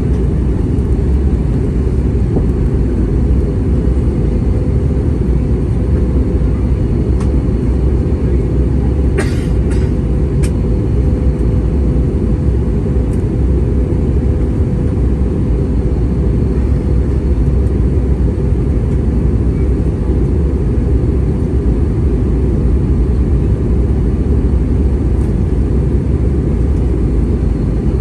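Steady engine and airflow noise inside the cabin of an Airbus A320-232 in flight, deep and unbroken, with a faint steady hum in it. A few light clicks come about nine to ten seconds in.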